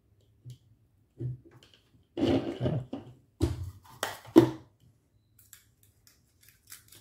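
Soldering tools and solder spools handled on a workbench: rustling and scraping, then a few sharp knocks as things are set down and picked up, the loudest knock about four seconds in.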